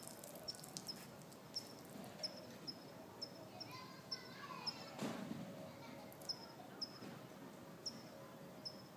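Outdoor ambience: a short, high chirp repeats about twice a second, pausing briefly past the middle. A few other quicker, falling bird calls come in around the middle.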